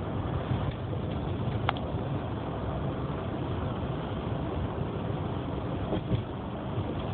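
Steady road and engine rumble of a moving car, heard from inside the cabin, with a brief click a little under two seconds in.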